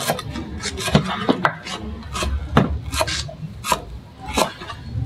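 Kitchen knife chopping cilantro on a wooden cutting board: a run of uneven knocks, about three a second.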